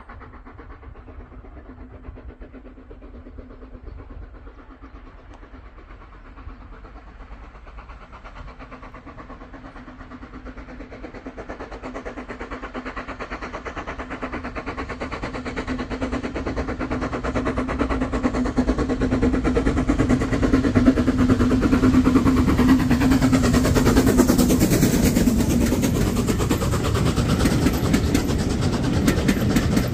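Steam-hauled passenger train approaching, growing steadily louder over about twenty seconds. The locomotive passes close about three-quarters of the way in, its sound dropping in pitch, and the coaches then roll past.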